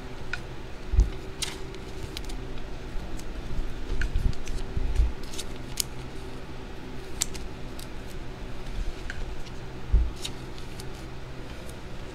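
Trading cards and foil packs being handled on a table: scattered light clicks and rustles with a few dull knocks, over a steady low hum.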